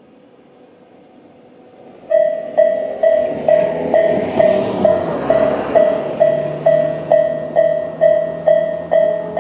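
Japanese railway level-crossing warning bell of the 'Tobu sound A' electronic type starting about two seconds in, a ringing ding repeated a little over twice a second: the signal that a train is approaching and the barriers are coming down. Before and under it, a rising rush of noise swells and fades.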